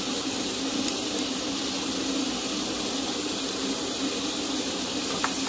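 Steady fan-like hiss with a low hum, as from a kitchen fan running, and one light click about a second in.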